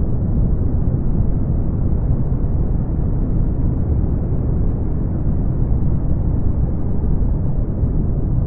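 Steady brown noise: a deep, even hiss, strongest in the low end and fading out well before the high range, with no changes or events.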